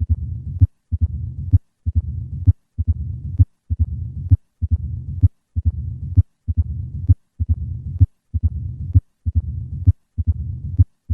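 Recorded heartbeat of a patient with typical mitral stenosis, a little faster than one beat a second. Each beat has sharp heart sounds and the low-pitched, rumbling diastolic murmur of mitral stenosis.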